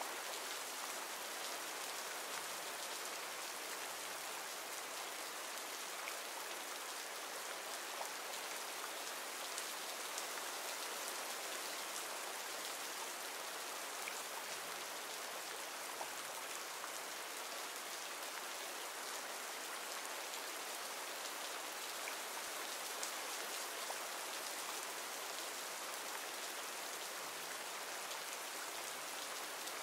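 Recorded rain ambience: steady rain falling, with scattered light ticks of single drops.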